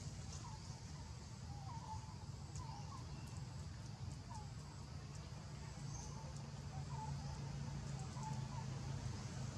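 Faint, short chirping calls repeated every half second or so over a steady low rumble.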